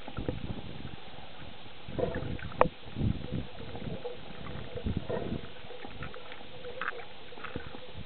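Muffled underwater sound picked up through a submerged camera: irregular rumbling swells of water movement and bubbles, with one sharp click about two and a half seconds in.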